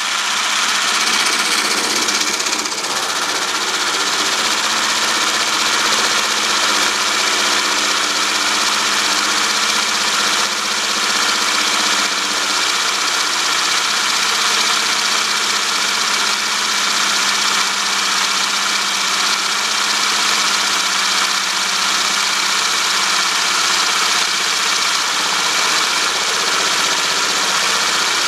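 Small electric blender running loudly and steadily, whipping heavy cream in a tall cup.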